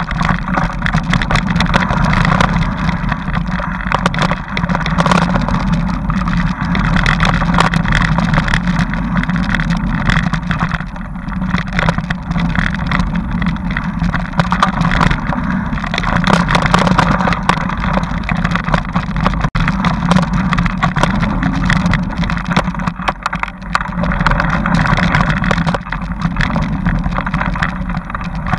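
Continuous riding noise from a bike-mounted camera on a rough dirt trail: a steady low rumble with many knocks and rattles as the bike goes over bumps.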